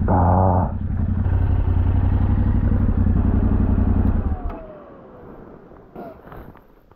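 Yamaha Ténéré 700 motorcycle's parallel-twin engine running steadily, then dying away a little over four seconds in.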